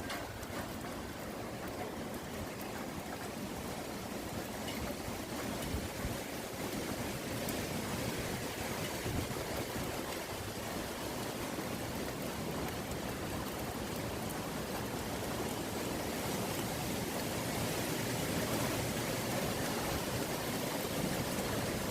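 Strong wind blowing, a steady rushing noise that slowly grows a little louder.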